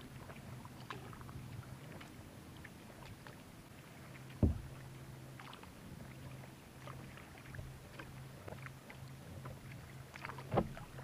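Kayak paddling: a double-bladed paddle dipping and pulling through lake water, with small splashes and drips, and sharp knocks about four and a half seconds in and again near the end.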